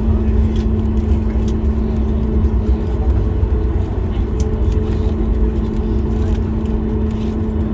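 Cabin noise of a Boeing 737 MAX 8 rolling on the runway after landing: its CFM LEAP-1B engines run with a steady hum over a loud low rumble, with a few faint clicks.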